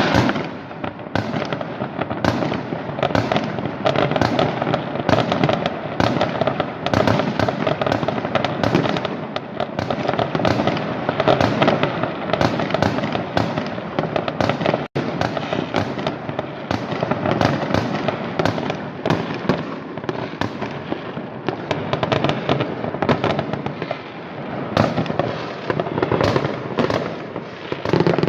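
Many fireworks and firecrackers going off at once: a dense, unbroken crackle of overlapping bangs and pops, with one momentary break about halfway through.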